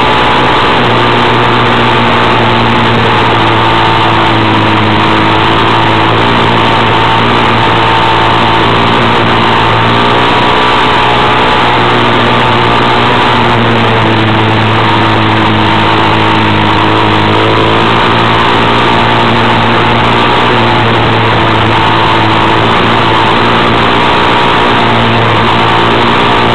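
Vehicle engine running steadily under loud tyre and road noise while driving fast on a gravel road, its pitch drifting up and down a little.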